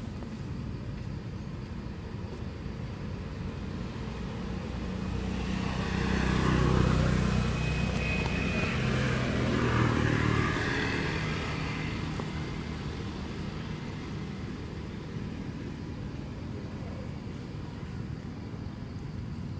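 A motor vehicle passing by: its engine noise swells up a few seconds in, holds for a few seconds, and fades away again over a steady background.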